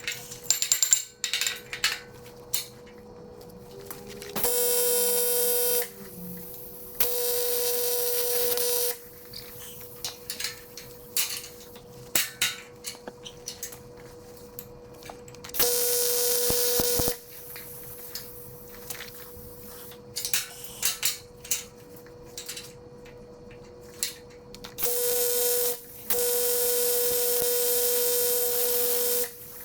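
Arc welder welding aluminium in short runs: five stretches of steady buzzing, each one to three seconds long, with clicks and a faint hum in the gaps between them.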